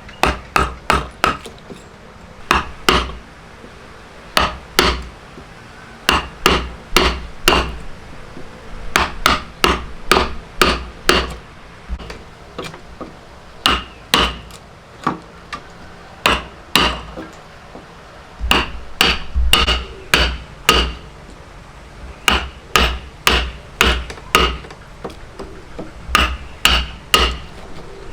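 Repeated hammer blows in hand woodworking, sharp knocks in runs of several strikes about two to three a second, broken by short pauses.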